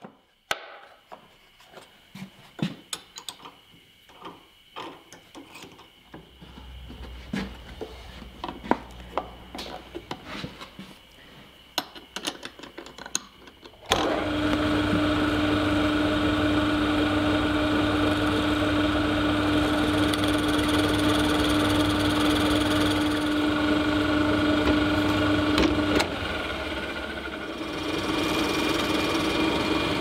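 Clicks and knocks of workpiece and clamps being handled, then a drill press motor starts suddenly about halfway through and runs with a steady hum while a conical reamer bores a tapered hole. Its note dips and shifts a couple of seconds before the end.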